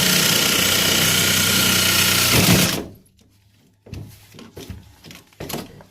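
Reciprocating saw with a metal-cutting blade running steadily through cast iron drain pipe, then cutting off suddenly a little under three seconds in. A few light knocks and clatters follow.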